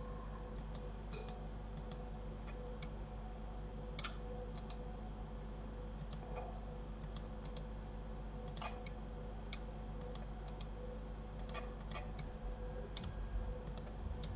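Computer mouse and keyboard clicks, scattered and irregular, often in quick pairs, over a faint steady hum and a thin high whine.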